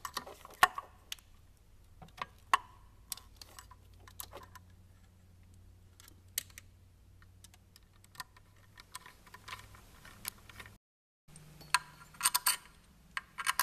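Sparse small metallic clicks and taps of a nut driver working the screw of a hose clamp on a coolant hose, over a faint low hum. Near the end, after a brief break, a quick cluster of metal clinks as parts on the cylinder head are handled.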